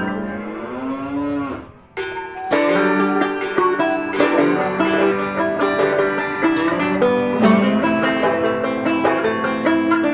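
A long drawn-out call that slides up and then bends down in pitch, dying away about two seconds in. Then bright plucked-string music takes over, with quickly picked notes.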